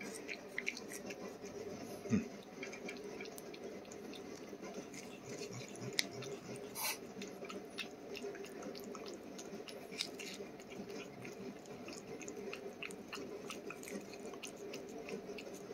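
A cat licking and chewing a paste treat from a squeeze tube: faint, wet lapping and smacking, with a few louder clicks.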